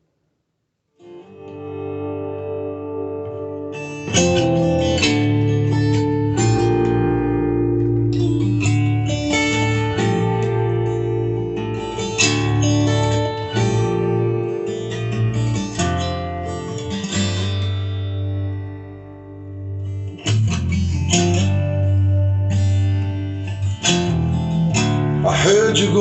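Instrumental intro of a song played through an Akai AA-2250 stereo receiver: strummed and picked acoustic guitar over a bass line. It starts softly about a second in and fills out about four seconds in.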